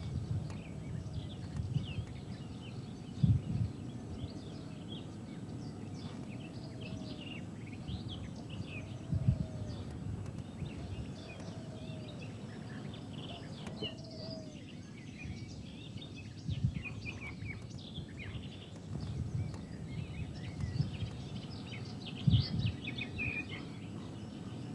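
Small birds chirping and twittering over a steady outdoor noise. Midway, a short low call is repeated about every second and a half. A few brief dull thumps come at intervals.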